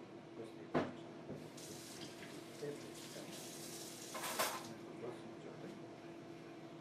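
Kitchen faucet running into the sink, water splashing over a hand held under the stream; it starts about a second and a half in, grows louder near the end and stops about three seconds later. A sharp knock sounds just before the water starts.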